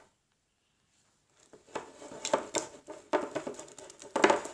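A utensil stirring slime in a bowl, giving quick irregular clicks and scrapes against the bowl that start about a second and a half in.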